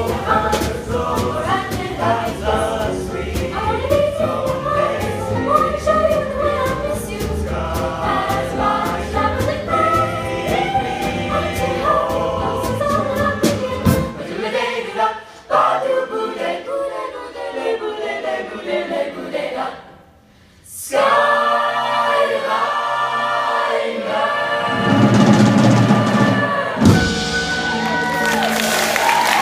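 Vocal jazz ensemble singing a swing arrangement in close harmony, backed by drum kit and upright bass. About halfway through the drums and bass drop away and the voices carry on mostly alone, stopping briefly before coming back in with held chords to the end of the song.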